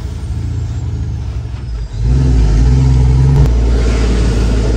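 Detroit Diesel Series 60 12.7-litre engine of a Freightliner FLD semi truck pulling a loaded trailer up to highway speed, heard inside the cab. The engine note dies away briefly about two seconds in, then comes back louder and holds.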